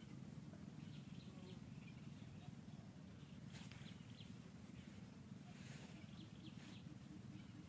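Near silence: a steady low outdoor background hum, with faint short high bird chirps now and then.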